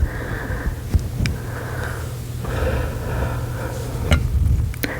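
Close-microphone whispering too soft to make out words, over a steady low rumble, with a few small mouth clicks.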